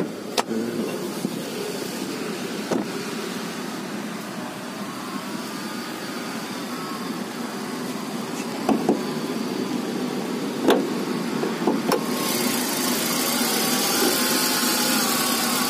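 Kia Cerato's 1.6-litre petrol engine idling steadily, with a few sharp clicks and knocks along the way. About twelve seconds in the engine sound becomes louder and brighter.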